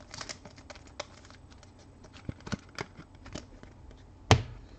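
Scattered light clicks and taps of trading cards and packaging being handled on a table, with one sharp knock about four seconds in.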